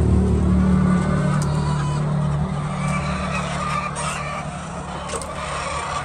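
An engine running steadily with a low hum that eases off after about a second.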